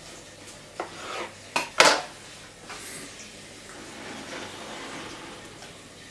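A knife put down with a few sharp knocks and clatters around the first two seconds, followed by quieter rubbing and scraping as the two halves of a freshly cut marble loaf cake are slid apart on a wooden cutting board.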